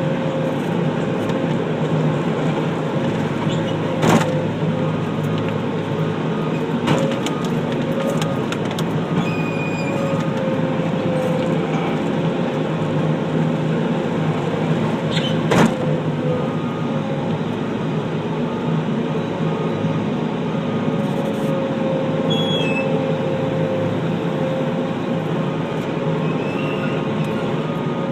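Skid steer loader's engine running steadily, with a couple of sharp knocks about four and sixteen seconds in.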